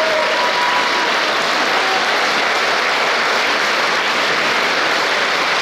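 Steady, sustained applause from a large concert audience and the performers on stage.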